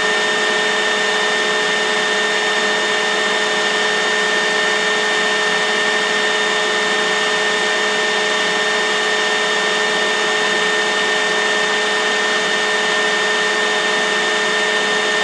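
Steady, loud hiss with several constant whining tones on top, unchanging throughout: a continuous mechanical or electrical background noise like a running fan or hair dryer.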